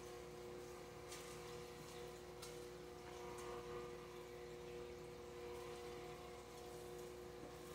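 Aquarium aeration: a steady hum from the air pump, with the hiss of the air stone's bubble stream and a few faint ticks.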